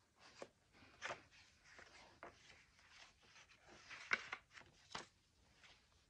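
Magazine-paper pages of a handmade junk journal being turned and handled: a faint string of soft paper rustles and light taps, the loudest about four seconds in.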